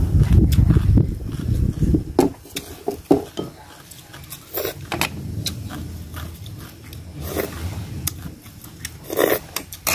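A person eating: chewing, with scattered sharp clicks of chopsticks against ceramic plates. A loud low rumble fills the first two seconds.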